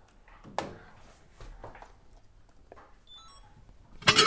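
A few soft knocks, a brief high sparkling chime about three seconds in, then a loud metallic clang near the end that rings on with clear tones.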